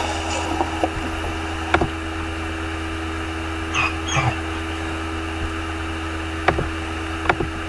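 Steady hum and hiss with a few sharp clicks, and a short high squeak about four seconds in.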